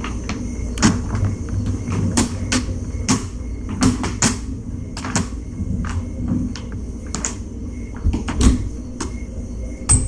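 A run of irregular sharp clicks and knocks, about two a second, over a steady hum.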